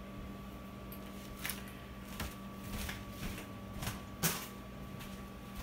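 A small tin can of tomato sauce being emptied over a stainless steel pot, with a few light clicks and knocks of the can being handled, the strongest a little over four seconds in. A faint steady hum runs underneath.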